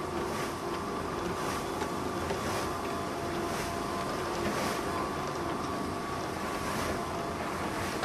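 Soviet-era, Ukrainian-built salt harvesting machine running: a steady mechanical drone with a few faint steady tones through it, and a rushing hiss that swells roughly once a second.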